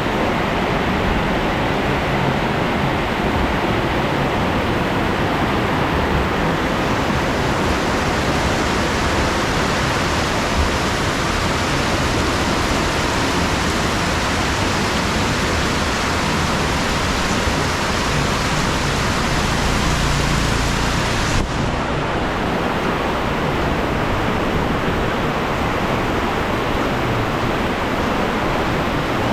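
Heavy rain pouring down, a steady dense hiss. A low rumble swells briefly about two-thirds of the way through.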